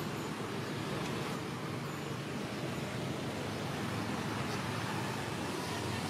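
Steady outdoor background noise, an even hiss and rumble without distinct events and with no monkey calls.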